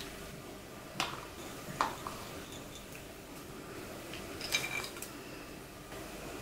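Light kitchen handling noises as ingredients go into a pot of sliced onions: a few soft clicks and knocks of a bowl against the pot, about one and two seconds in, and a short patter of spices tipped from paper a little after four seconds.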